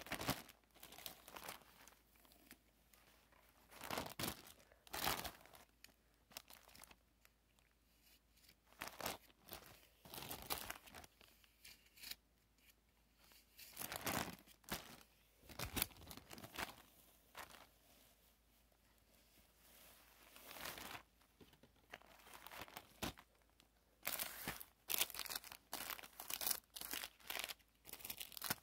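Plastic wrapping crinkling in short, irregular rustles as a clear plastic bag of cookies and candy wrappers are handled, the rustles coming thick and fast near the end.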